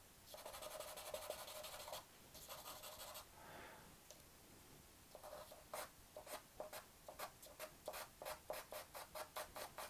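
Faint sound of a charcoal stick scratching on drawing paper. First comes one long stroke of about two seconds and a shorter one, then, from about halfway, a run of quick short hatching strokes, about three a second.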